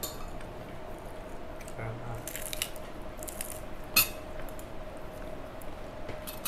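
Light clinks and taps of cutlery and dishes at a meal table, a few quick clicks about two and a half seconds in and one sharper click about four seconds in, over a steady faint hum.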